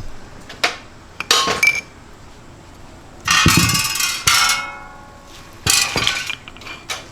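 Hammer blows on metal, several separate strikes, as a piston and connecting rod are knocked out of a Ford Coyote 5.0 engine block. Around the middle there is a louder clatter with a short metallic ring after it.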